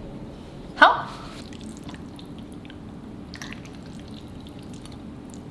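A metal fork scraping a ceramic plate gives one short rising squeak about a second in, followed by a few faint clicks of cutlery, over a low steady hum.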